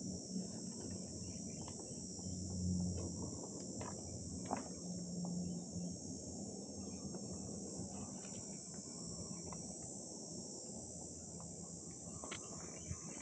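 Steady high-pitched insect chorus, with a low hum that swells a couple of times and a few faint clicks.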